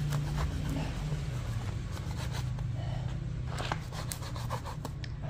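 Kitchen knife cutting a half-frozen fish into slices: a series of short, irregular cutting strokes, the blade working hard through the partly frozen flesh. A steady low hum runs underneath.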